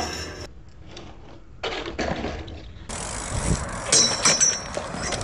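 BMX bike ridden on pavement: tyre noise with clicks and knocks from the bike, and a short high-pitched squeal about four seconds in. The sound breaks off and changes abruptly several times, as short clips are spliced together.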